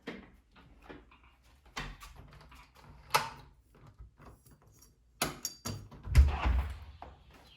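A door being handled: latch clicks and knocks, then the door closing with a heavy thud about six seconds in.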